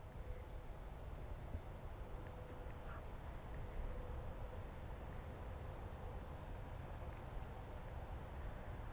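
A steady, high-pitched insect chorus keeps up without a break, over a low rumble.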